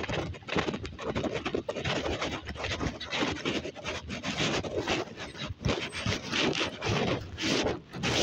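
Wind buffeting the microphone in irregular gusts, mixed with scraping and rubbing noises from an e-bike rolling over a dirt path.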